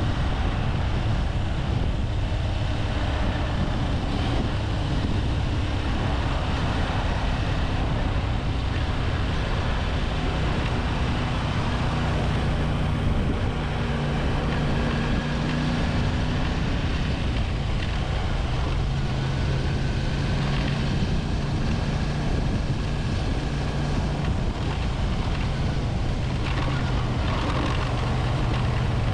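1985 Honda VT250F Integra's V-twin engine running steadily as the motorcycle is ridden, its low note shifting up and down a little with the throttle.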